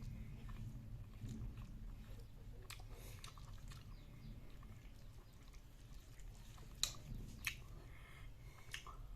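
A person chewing a mouthful of kidney beans, with soft wet mouth clicks, and two sharper clicks about seven seconds in.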